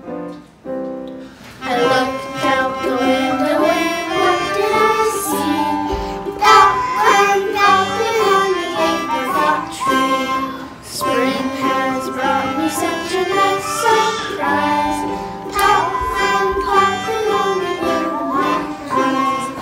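A group of children singing a children's song in unison, with melodica, glockenspiel and ukulele accompaniment. A short instrumental lead-in of separate notes comes first, and the voices come in about a second and a half in.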